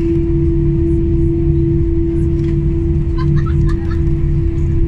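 Cabin noise of an Airbus A319-111 taxiing, its CFM56 engines at idle: a steady hum with one strong unchanging tone over a low rumble.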